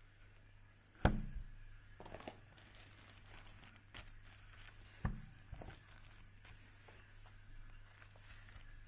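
Close handling noises: two sharp knocks about four seconds apart, the first the louder, with light rustling and small clicks in between.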